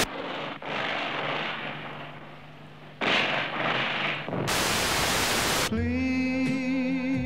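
Television static hiss as the set is switched between channels: a hiss that fades over the first three seconds, a second patch of hiss, then a loud burst of static. Near the end, music cuts in with a held, wavering note.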